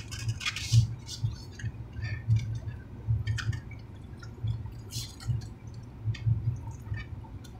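Close-up chewing of food: wet smacking and clicking mouth sounds at an irregular pace.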